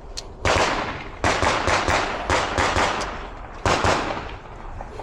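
Rapid pistol fire from another shooter on a nearby stage: about ten shots in quick pairs and short strings, each with a trailing echo.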